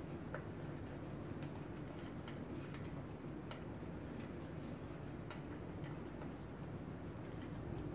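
Cat eating dry kibble from a stainless steel bowl: small irregular crunching clicks, several a second, over a low steady background hum.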